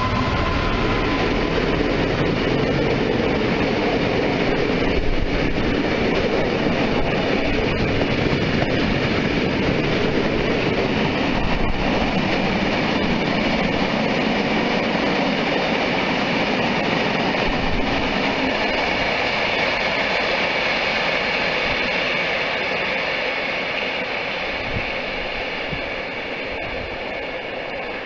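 Freight train of tank wagons rolling past close by on the rails, behind an EWS Class 66 diesel locomotive that is just passing as the sound begins. The steady rolling noise fades gradually over the last several seconds as the train draws away.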